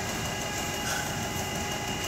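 Steady mechanical drone of a pig nursery barn's ventilation fans, with several steady whining tones over it and a brief high squeak about a second in.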